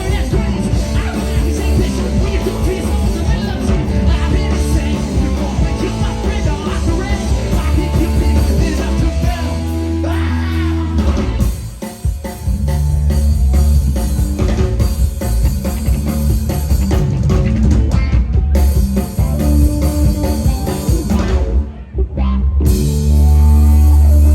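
Live rock band playing electric guitar, bass guitar and drum kit at full volume, with two brief drops in the sound, about halfway through and near the end.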